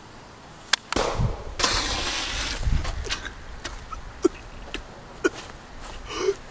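A sharp gunshot crack about a second in, followed by about a second of hissing rush, then a few small scattered clicks.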